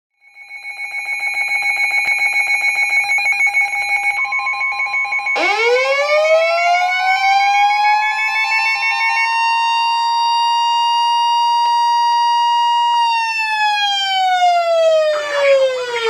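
Weather-alert radios sounding a warning alarm together: a fast-pulsing electronic beep, joined about four seconds in by a steady 1050 Hz NOAA warning tone. Then, about five seconds in, a siren-like tone winds up from low to high, holds, and winds back down near the end.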